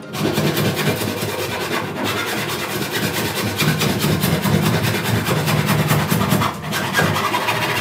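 Hand saw cutting through the boards of a wooden pallet beside its blocks, with steady, unbroken back-and-forth sawing.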